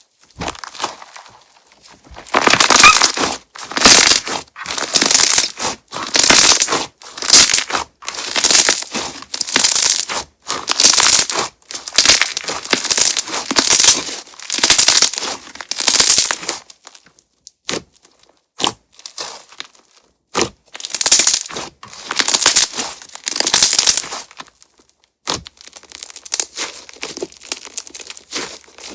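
Crunch-texture slime being pressed and squeezed by hand, giving loud crackling pops in a run of bursts about once a second, then softer, sparser crackles near the end.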